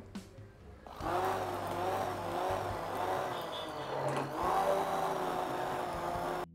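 Electric hand blender running in a tub of cake batter as flour is worked in; its motor whine wavers slightly in pitch. It starts about a second in and cuts off just before the end.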